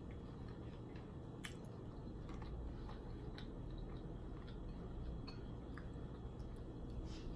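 Eating sounds: chewing with wet, squishy mouth noises and scattered small clicks as boiled seafood and sides are picked apart by hand and eaten.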